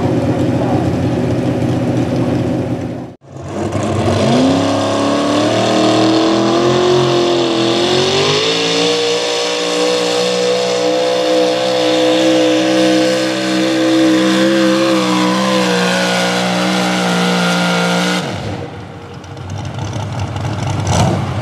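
Gasoline 4x4 pulling trucks running at full throttle while dragging a pulling sled, in separate runs cut together. In the longest run the engine climbs in pitch for a few seconds, then holds high and steady for about ten seconds before cutting off.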